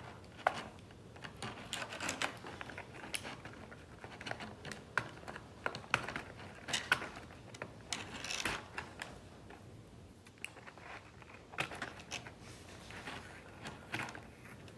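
Irregular light clicks and short rustles of small plastic fingerboard parts and packaging being handled, with no steady rhythm.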